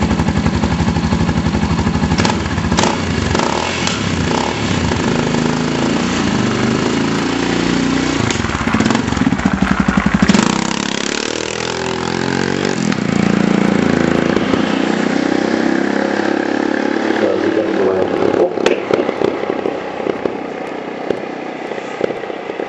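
Yamaha XT660R single-cylinder motorcycle engine running just after starting, then revving and rising in pitch as the bike pulls away up the track on ice-studded tyres. The engine sound drops off near the end as the bike rides out of earshot.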